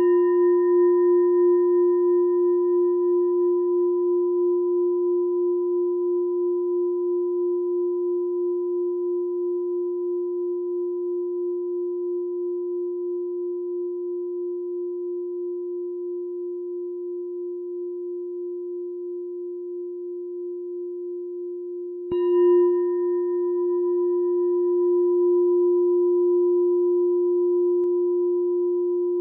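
Meditation bell ringing on after a strike, a steady low tone that wavers slightly as it slowly fades, its higher overtones dying away within a few seconds. It is struck again about 22 seconds in and rings on.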